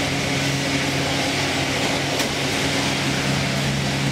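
Steady low machinery hum with an even hiss over it, and one faint tick about two seconds in.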